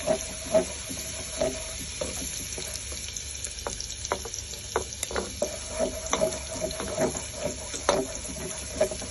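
Minced garlic sizzling in hot olive oil in a frying pan, stirred with a spatula that knocks and scrapes against the pan in many short, irregular taps.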